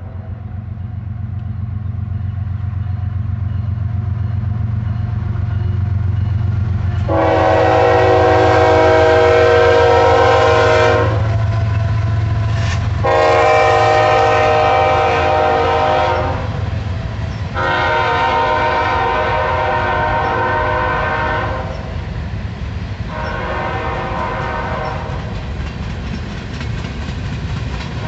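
CSX diesel freight locomotives pulling hard under load, their low engine rumble building, with the multi-chime air horn sounded in four blasts, three long and the last shorter. Near the end the freight cars roll past.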